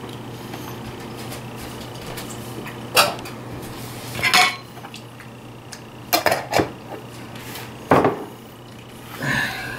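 Kitchenware being handled on a counter: a spoon, a jar and a plastic food container clink and clatter as they are set down and moved, in about five short separate knocks a second or two apart.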